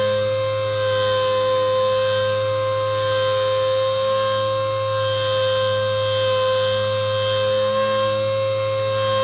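Pneumatic random-orbit sander fitted with a 180-grit disc, running steadily over a wooden cabinet panel: a constant high-pitched whine over a lower hum.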